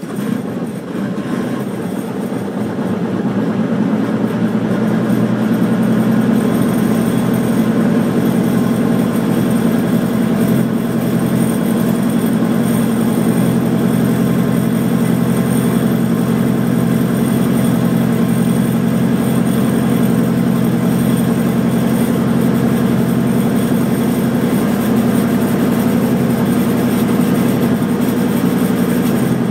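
Schweizer 300CBi helicopter's piston engine running just after start, heard inside the cockpit. It grows louder over the first several seconds, then runs steadily.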